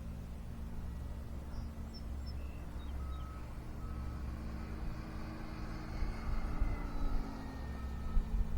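Electric RC model Corsair's motor and propeller droning steadily in slow flight, swelling a little about six seconds in. From about three seconds in, a short high beep repeats a little faster than once a second.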